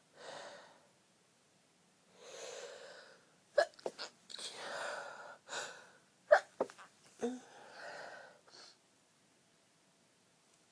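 A woman's stifled sneezes in a fit: breathy gasping intakes, then several short, sharp, held-in sneezes in two clusters, each trailed by a breathy exhale.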